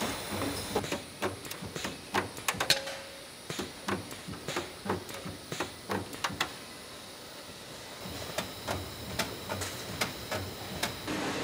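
Irregular sharp metallic clicks and knocks from work on aluminium Land Rover Defender body panels at an air-powered machine station, over a low steady factory hum. The clicks thin out briefly past the middle and pick up again near the end.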